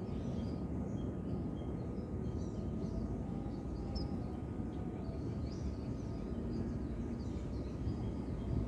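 Outdoor ambience: a steady low rumble with a thin steady tone, and small birds chirping faintly and intermittently.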